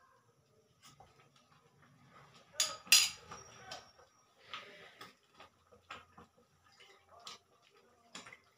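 Thick red chilli chutney paste frying in oil in a pan, spluttering with scattered small pops and ticks, as the oil separates from the paste. About two and a half seconds in, a metal spoon clatters twice against the pan and the stove, the loudest sound.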